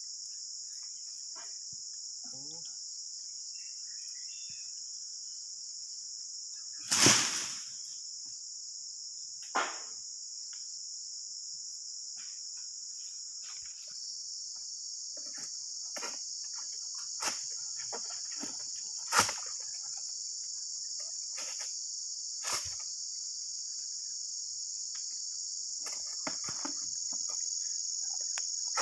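Steady, high-pitched insect chorus, broken by a scattering of short sharp knocks, the loudest about seven seconds in and another about nineteen seconds in.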